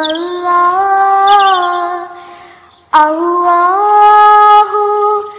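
A female voice singing a naat in long held notes that glide gently in pitch. One note fades away about two seconds in, and after a short pause a new one starts sharply about three seconds in.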